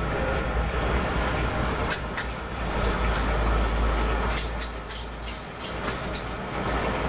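Low rumble of a motor vehicle passing on the street, swelling about three to four seconds in and then fading, with a few faint clicks over it.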